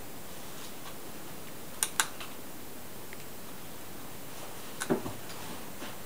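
A cat moving on an old wooden winnowing machine strewn with dry paper: a couple of sharp clicks about two seconds in and a duller knock near five seconds, over a steady hiss.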